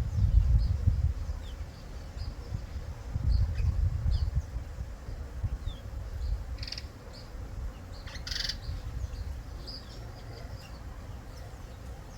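Garden birds chirping in short, scattered high notes, with two louder calls around seven and eight and a half seconds in, over a low rumble that swells near the start and again about three seconds in.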